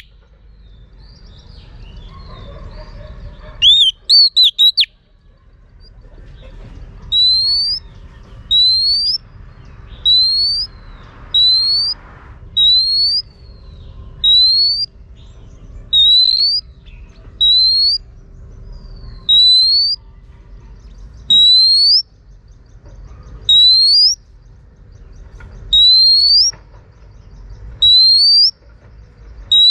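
Female oriental magpie-robin calling, the call keepers use to rouse male birds to sing. A brief burst of sharp notes about four seconds in is followed by a long series of loud, rising whistled calls, one every one to two seconds.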